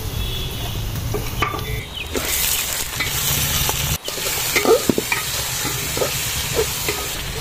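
Chicken pieces sizzling in hot oil with fried onions in a metal pot, the sizzle growing louder about two seconds in. A metal spoon stirs and scrapes against the pot, with a few short clinks.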